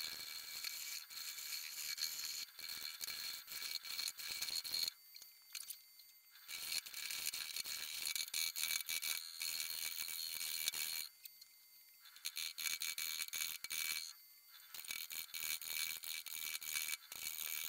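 Gouge cutting a spinning willow bowl blank on a wood lathe: a steady high hiss of shavings coming off, broken three times when the tool lifts off the wood, about five, eleven and fourteen seconds in. A faint steady high whine from the lathe runs under it.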